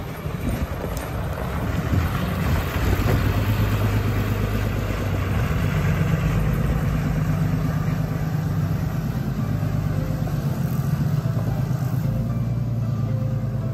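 A vehicle engine running steadily: a low hum whose pitch steps up about five seconds in, with a hiss over it during the first few seconds.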